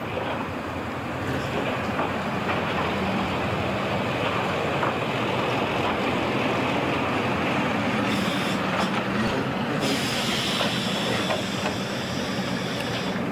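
Small diesel locomotive hauling a short mixed train slowly past: the engine runs steadily under the rumble of wheels on the rails. A higher hiss joins in about two-thirds of the way through.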